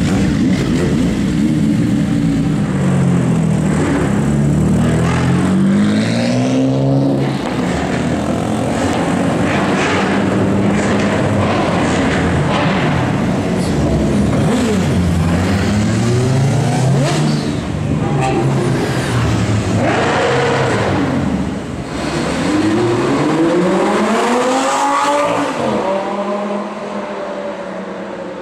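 Superbike and supercar engines revving and accelerating through city streets, one after another, the engine notes repeatedly climbing and dropping back as each gear is run up and the vehicles pass.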